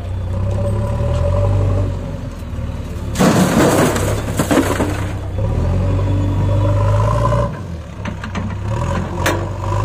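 JCB 3DX backhoe loader's diesel engine running under hydraulic load, rising and easing in level, as the front loader bucket tips a load of soil into a tractor trolley. About three seconds in, the soil pours into the trolley in a rush of noise lasting nearly two seconds, and a few sharp knocks follow near the end.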